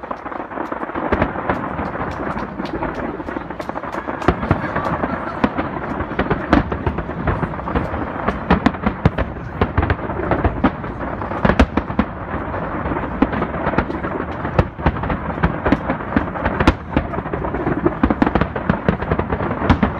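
Fireworks display: a dense barrage of bursting aerial shells, a continuous rumble packed with many sharp bangs and cracks that overlap without pause.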